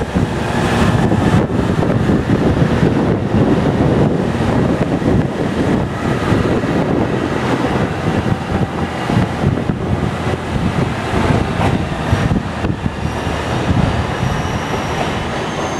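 KiHa E130-100 series diesel railcar pulling out of a station, its diesel engine working and its wheels clattering over the rails as it passes and draws away, slowly fading. A faint high whine comes in near the end.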